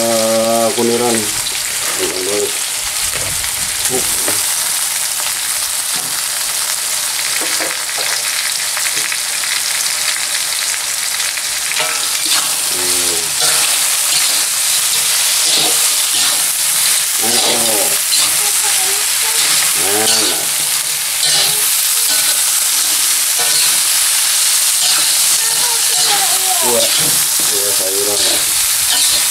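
Mantis shrimp and spice paste sizzling steadily in a hot wok, stirred with a metal spatula that clicks and scrapes against the pan.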